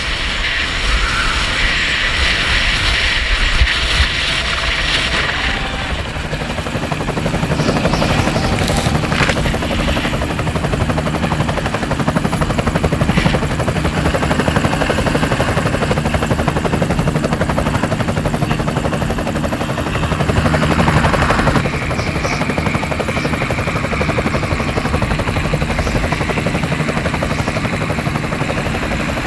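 Wind and ski noise rushing over the camera for the first few seconds. Then a helicopter's engine and rotor run steadily overhead under a constant rush of noise, swelling briefly a few seconds before the end.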